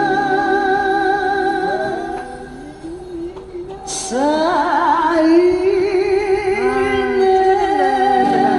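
Music: a singer holding long sung notes with vibrato over keyboard accompaniment. The sound drops quieter for a moment about a third of the way in, and the singing then resumes.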